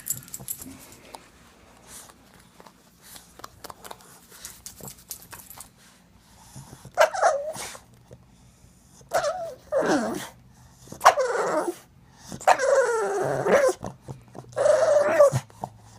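A pug making a string of whining, grumbling vocal sounds, about six calls in the second half, after a few seconds of faint rustling and clicks. These are its demand for more butt scratching.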